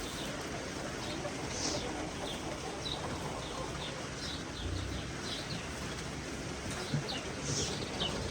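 Small birds chirping: short, high chirps scattered irregularly over a steady background hiss.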